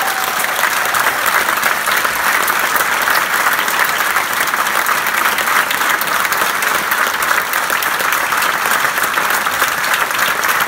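A large group of people clapping: steady, sustained applause with no let-up.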